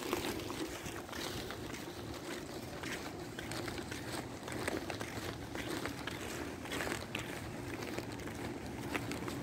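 Outdoor street ambience picked up by a phone carried while walking: a steady low hum with a wash of wind and distant traffic noise, and a few light scuffs.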